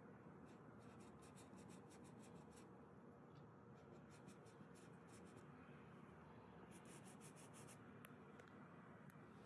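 Faint scratching of a paintbrush stroking acrylic paint onto textured canvas, in quick runs of short strokes, over a steady low hiss.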